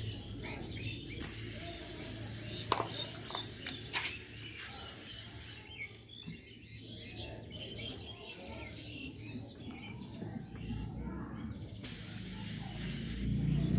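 Air hissing out of a punctured tubeless motorcycle tyre in two bursts, one about four seconds long and a shorter one of about a second and a half near the end. Birds chirp faintly in the background.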